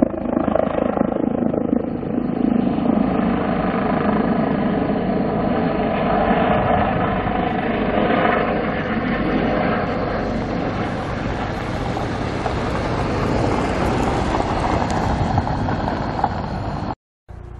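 Airbus H145M helicopter running steadily, with fast rotor beat and a high turbine whine over a loud roar. It cuts off abruptly near the end.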